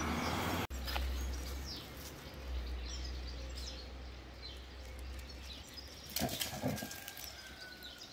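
Outdoor ambience of small birds chirping over a steady low rumble. About six seconds in comes a short cluster of louder, sharper sounds.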